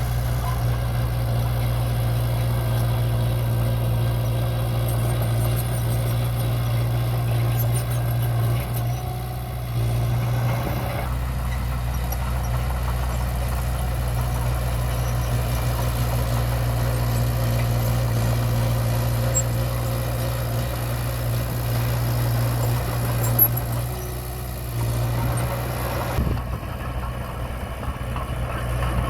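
Diesel engine of an earthmoving machine running steadily with a deep, even drone, easing slightly twice. There is a single sharp knock about two-thirds of the way through.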